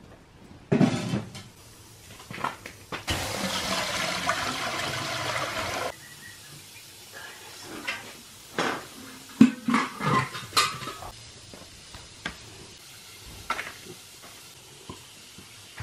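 A metal pot is set down with a clunk. Liquid is then poured from a metal can into an aluminium pot for about three seconds, stopping suddenly, followed by several sharp metal clanks and clinks of pots and utensils.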